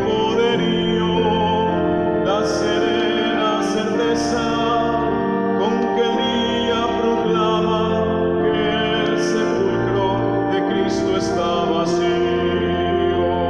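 A man singing a hymn with vibrato over sustained chords played on a two-manual organ.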